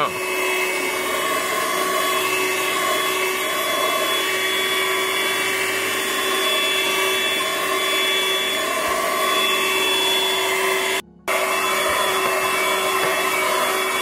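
Audew handheld 12-volt wet and dry car vacuum running with a steady motor whine as its nozzle is worked over the car's floor carpet. The sound cuts out for a moment about eleven seconds in.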